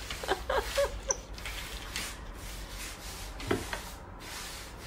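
A cat's paw scratching and rubbing at a painted wall: a few short scratchy strokes in the first second, then one more about three and a half seconds in.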